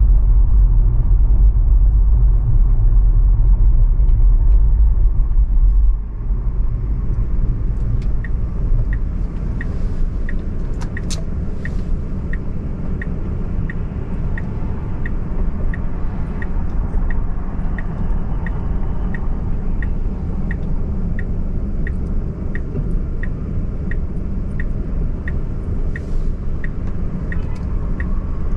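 Car driving through city streets: low road and engine rumble, heavy for the first six seconds and then lighter. From about eight seconds in, a steady ticking about twice a second, the click of a turn signal.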